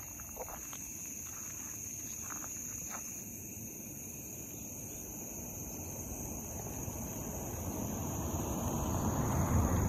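Insects chirring in a steady high-pitched drone, with a few brief clicks or calls in the first three seconds. A low rushing noise swells from about six seconds in and is loudest near the end.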